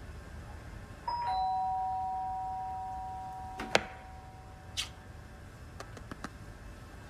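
Two-tone doorbell chime: a higher ding about a second in, then a lower dong, both ringing out slowly over several seconds. A sharp click near the middle and a few lighter clicks follow.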